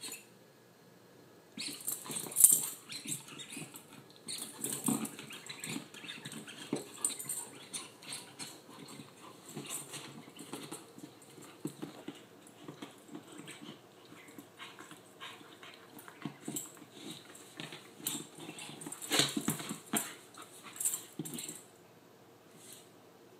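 An Akita chewing and gnawing at a small object: irregular crunching and clicking of teeth on it, quiet for the first second or so and again near the end.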